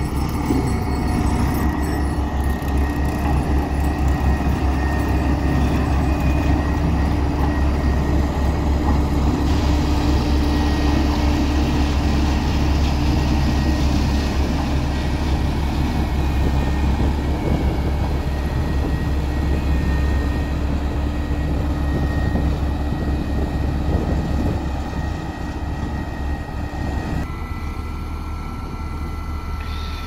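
Heavy road-construction machinery running: a steady, low diesel-engine rumble with a constant hum above it. It drops a little in level near the end.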